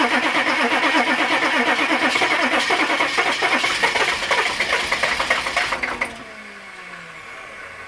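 A turbo-diesel Suburban engine cranking on the starter in a cold start, after the glow-plug wait and with no block heater, with a fast even rhythm of compression strokes. About six seconds in the cranking stops abruptly, the level drops and a tone slides down in pitch.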